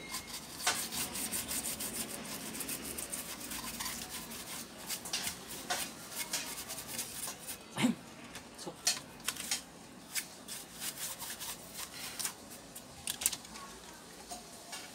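Brush bristles scrubbing over a laptop motherboard, cleaning off corrosion, with scattered small clicks and taps that become more frequent in the second half.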